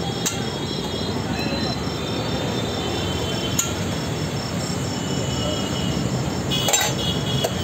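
Steady rumbling, hissing noise, broken by a few sharp metallic clinks of a steel ladle against steel pots.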